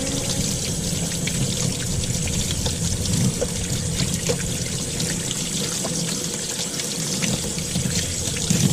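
Water running from an outdoor faucet and splashing over a cleaned blue crab held in the hands, rinsing out its body into a utility sink. It is a steady splashing hiss with a few small clicks.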